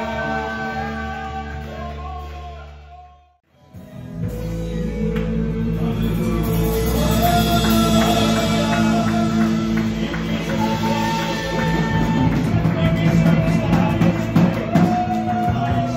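Live worship band music with electric guitar and singing. The sound fades almost to silence about three seconds in, then the music picks up again, louder.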